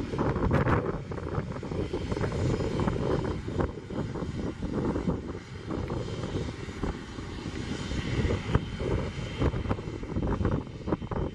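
Turbofan engines of a twin-engined business jet, a Cessna Citation Excel-family, on its landing roll: a steady, fluctuating jet rumble with a fainter high hiss.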